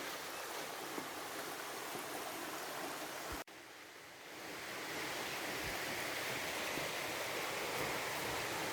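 Steady rush of running water. It cuts out abruptly about three and a half seconds in and comes back louder a second later.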